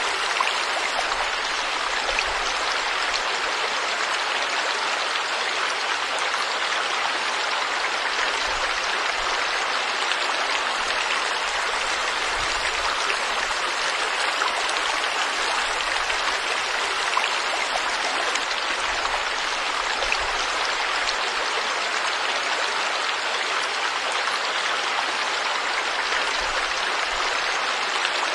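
Forest river flowing over rocks: a steady, even rush of water.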